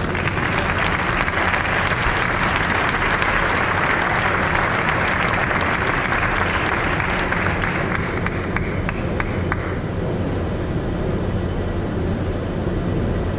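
Audience applauding, the clapping dense at first and dying away about eight to ten seconds in, leaving only low hall background noise.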